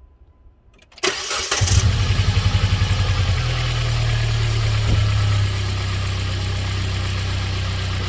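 2010 Dodge Journey's four-cylinder engine cranked by the starter and catching about a second in, running at a pulsing fast idle that settles to a steady idle a few seconds later. It runs smooth on its newly replaced ignition coil, which cured a misfire on one cylinder.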